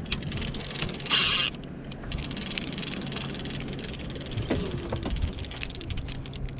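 Fishing reel being cranked while a blue catfish is fought, giving a run of fine rapid clicks, with a short loud hiss about a second in. A low steady hum runs underneath.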